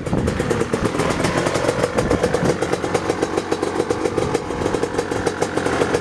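1992 Suzuki RM250's two-stroke single-cylinder engine running steadily at low revs with a fast, even firing rattle as the bike rolls up and comes to a stop, then ticks over.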